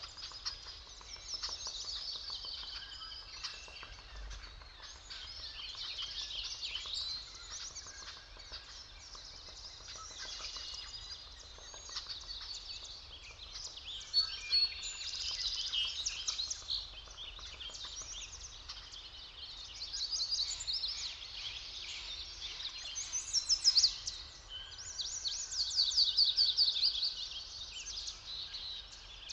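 Dawn chorus of several forest songbirds: overlapping chirps, whistles and fast trills, with louder song phrases coming and going, over a faint steady background hiss.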